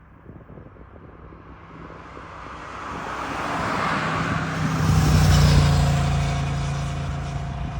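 Cessna Citation Sovereign+ business jet's twin turbofan engines passing on landing approach. The jet noise swells for a few seconds to its loudest just past the middle, with a steady whine, then slowly fades.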